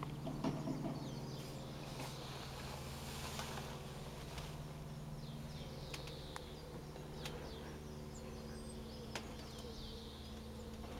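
Steady low drone of a distant propeller aircraft's engine. Birds chirp faintly a few times over it, and there are several sharp clicks.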